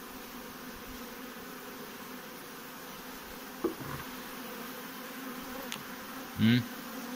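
Honeybees buzzing as a steady hum over an open hive with its frames exposed. A faint tap comes a little after halfway, and a brief voice sound comes near the end.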